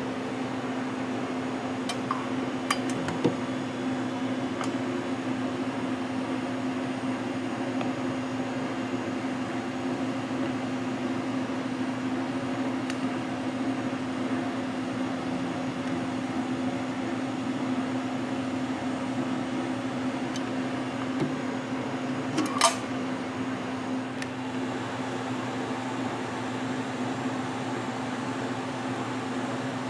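Steady electric hum of an Emery Thompson batch freezer, with a few light clicks and one sharper metal click about three quarters of the way through.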